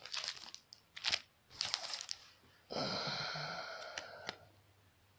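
Trading-card pack wrapper being torn open and crinkled: a few sharp crackles in the first two seconds, then a longer rip about three seconds in.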